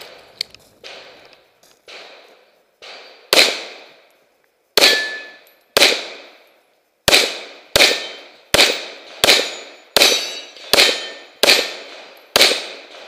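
Semi-automatic pistol firing a string of about a dozen shots, slow at first and then steadily about one every 0.7 s, at steel plate targets that ring when hit. A few fainter reports come in the first three seconds.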